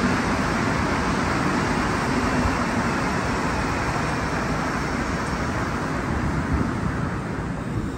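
Montreal Metro Azur rubber-tyred train pulling into the station: a steady rush of running gear that slowly fades as it slows. A low hum dies away in the first second or two.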